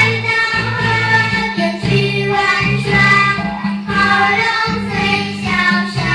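A children's song: voices singing a melody over a steady instrumental accompaniment.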